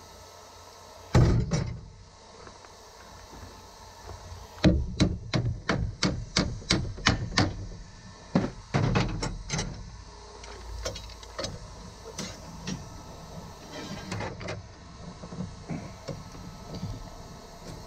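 Metal knocks and clanks from working a red-hot piece of steel clamped in a bench vise. There is one heavy knock about a second in. About four seconds in a run of sharp blows starts, about three a second, and lasts some five seconds. Lighter clinks follow.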